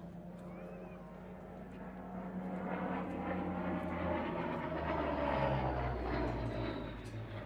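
Supermarine Spitfire LF Vc's Rolls-Royce Merlin V12 engine growing louder as the aircraft flies past, its pitch dropping about halfway through as it passes, then easing off slightly.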